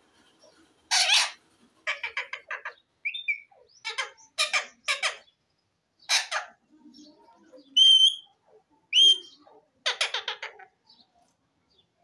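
Rose-ringed parakeet calling: a string of short, harsh squawks and rapid chattering notes, with two clear whistles near the end.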